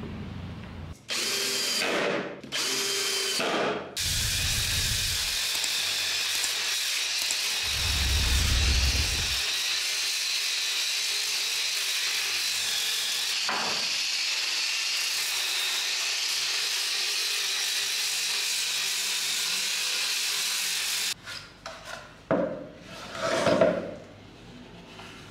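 Electric angle grinder sanding a wooden box, running steadily with a high whine for about seventeen seconds and then cutting off suddenly. Before it, two short bursts of a power tool, and near the end a few knocks of wood being handled.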